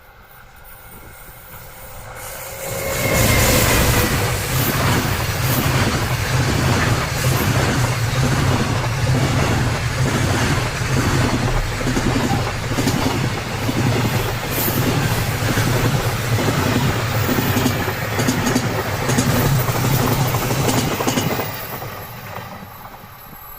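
Freight train hauled by a JR Freight EF210 electric locomotive passing close by. It swells in over the first few seconds, then the wagons roll past with a regular clickety-clack of wheels over rail joints, and it fades away near the end.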